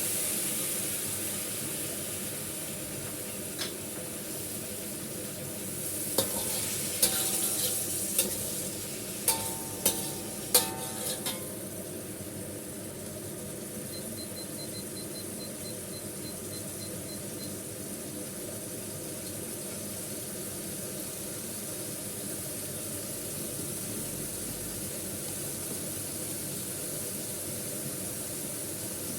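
Pork ribs and bitter melon sizzling in a hot pan just after a splash of cooking wine. Between about six and eleven seconds in, a metal spatula stirs and knocks against the pan several times, and the sizzle then carries on steadily.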